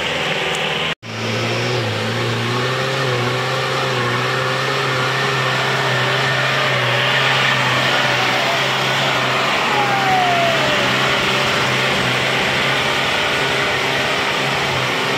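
A 4x4's engine running steadily, its pitch wavering slightly as it works along, with a brief dropout about a second in.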